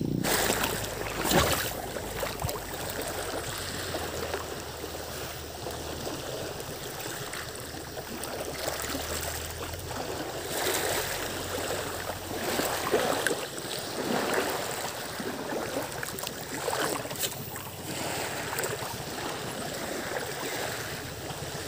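Shallow seawater lapping and sloshing against the rocks, a steady watery wash with a few brief louder swells and one short knock about a second in.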